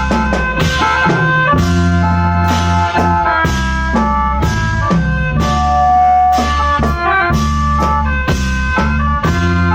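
Khaen band playing: sustained chords from khaen free-reed mouth organs over a steady drum beat and bass.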